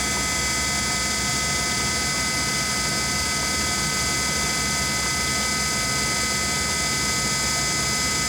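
Power drive of a LeBlond 4025 NK heavy-duty gap lathe's sliding bed running steadily as the bed travels open, away from the spindle. It is a constant mechanical whine made of several steady tones over a running hum.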